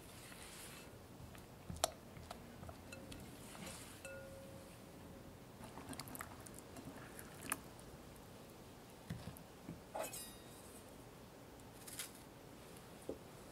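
Quiet kitchen handling sounds: fresh strawberries swished in a glass bowl of water, with scattered light clinks and taps against the glass, then a small knife cutting the hulls off strawberries near the end.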